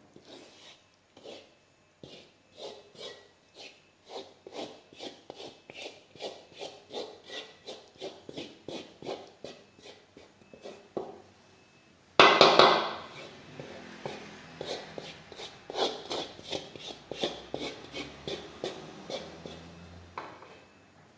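Rhythmic scraping of a spatula stirring sambal in a pan, about three strokes a second. A louder burst comes about halfway through.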